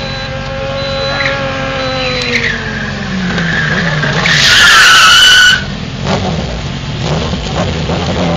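Homemade quad with a Kawasaki Z1000 inline-four engine held at high revs in a tyre-smoking burnout, the engine note falling after about two seconds. About four seconds in comes a loud, wavering tyre squeal, the loudest sound, which cuts off abruptly, followed by an engine running at lower revs.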